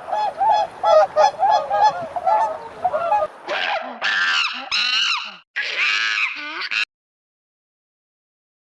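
Animal calls: a quick run of short, repeated calls, about three a second, then louder, higher calls that rise and fall, cutting off abruptly about seven seconds in.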